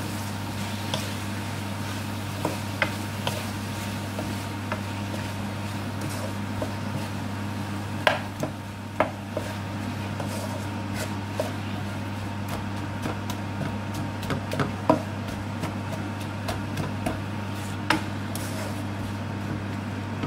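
Wooden spatula stirring sliced onions in a non-stick wok, with irregular taps, knocks and scrapes against the pan. A steady low hum runs underneath.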